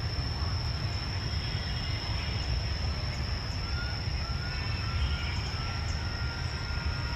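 Outdoor city ambience: a steady low rumble of distant traffic, with a constant high-pitched whine over it and a few faint whistle-like tones in the second half.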